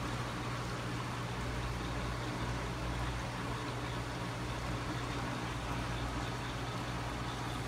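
Steady low hum with an even hiss, from running aquarium equipment: the tank's filter pump and its water return.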